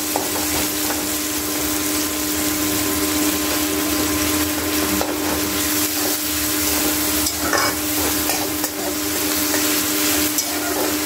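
Chopped onion and garlic sizzling in hot oil in a kadhai while a metal spatula stirs and scrapes them, with small clicks of metal on metal. A steady low hum sits underneath.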